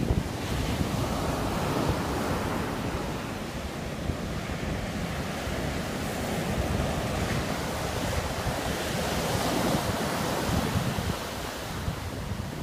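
Ocean surf breaking and washing up a sandy beach in a steady wash of noise that swells and eases, with wind blowing across the microphone.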